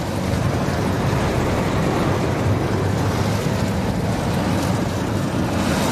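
Storm wind and heavy rain beating on a car, a steady rushing roar heard from inside the cabin, with the car's own low running and road noise underneath.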